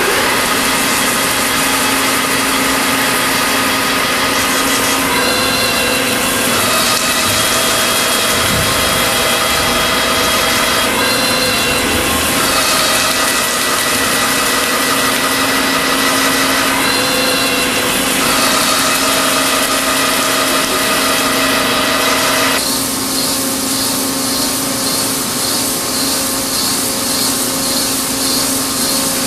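Hillary Machinery RT1250U horizontal boring mill running, its integrated facing head rotating and cutting a metal workpiece: a steady machine hum with a constant low tone and higher whining tones that shift every few seconds. About three-quarters of the way through, the hissing top of the sound drops away.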